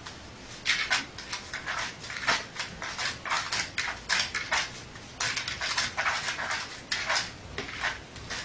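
A dog making short, breathy, snuffly noises, several a second in irregular runs.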